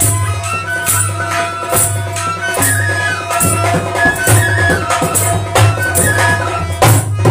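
Himachali nati folk music: a dholak drum beats a steady rhythm while a harmonium plays a stepping melody over held drone notes.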